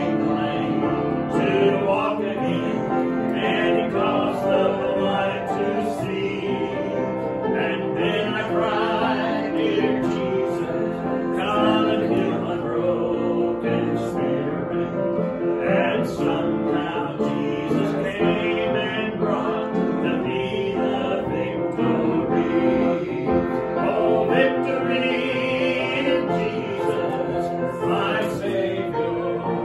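A man singing a slow solo song with vibrato, accompanied on piano.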